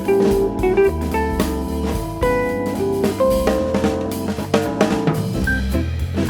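Background music: a band with drum kit, bass and guitar playing at a steady beat.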